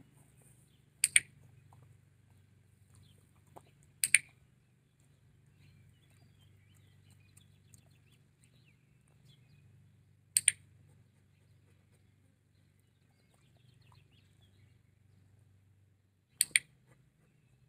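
Dog-training clicker pressed four times, a few seconds apart, each a sharp double click, marking the dog for holding the play-dead position on its side. A faint steady low hum runs underneath.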